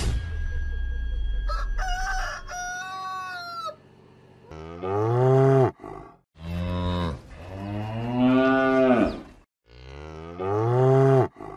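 A rooster crows about two seconds in, over a low rumble, then a Holstein dairy cow moos four times in long, low calls.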